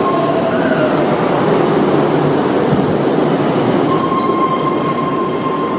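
Electric four-car monorail train running along its track: a steady rush of noise, joined about four seconds in by high whining tones.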